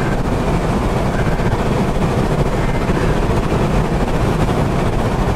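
Steady road and engine noise inside a moving car on a wet road.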